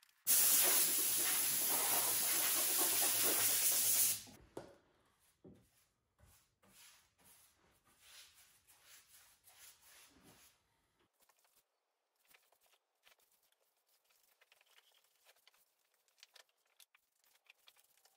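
Compressed-air blow gun hissing steadily for about four seconds, then cutting off. After it, faint scrapes and strokes of a brush laying finish onto the wooden tabletop.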